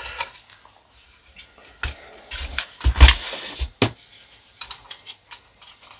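Scattered clicks and knocks of a small PC's metal case and parts being handled, the loudest knock about three seconds in.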